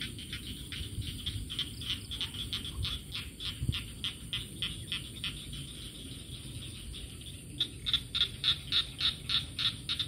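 Frogs calling from a rice paddy: a rapid series of short rattling pulses, about four a second, which pause briefly about seven seconds in and start again louder.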